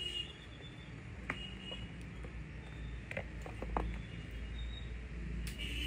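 Several small, sharp plastic clicks as a handheld ear-piercing gun is handled and loaded, over a low steady room hum.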